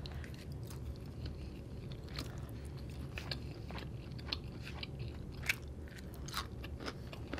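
Close-miked chewing of stir-fried egg noodles: a run of short, scattered wet mouth clicks and smacks, one louder about five and a half seconds in.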